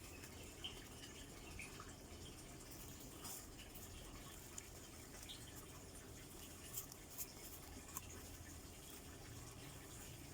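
Near silence: faint room hiss broken by a few soft ticks.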